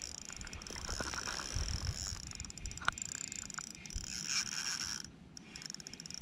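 Spinning reel clicking and whirring as a hooked trout is played on light tackle, with a few handling knocks.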